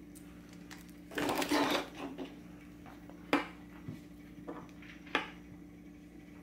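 Plastic medical supplies handled on a tabletop: a brief crinkling rustle of a plastic IV fluid bag being set down about a second in, then a few sharp plastic clicks and knocks from the syringe and 3-way stopcock. A steady low hum runs underneath.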